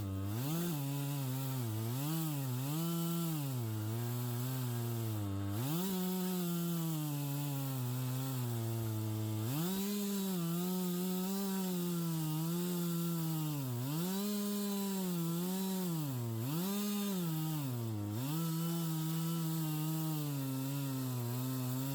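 Gasoline chainsaw fitted with a ripping chain, running in a portable chainsaw mill as it rips a log lengthwise into planks. The engine runs continuously, its pitch repeatedly dipping and climbing back every second or two as the load in the cut changes.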